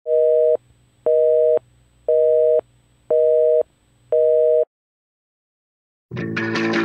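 Telephone busy signal: five steady two-tone beeps, half a second on and half a second off. Music with guitar and bass starts near the end.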